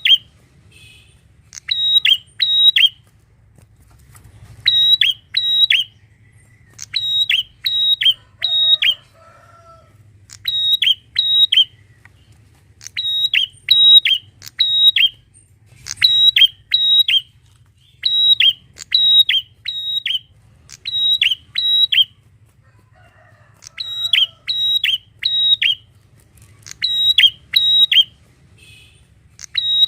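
Prinia (prenjak) singing loud, sharp, high notes in quick groups of two to four, repeated about every two seconds, over a faint low hum.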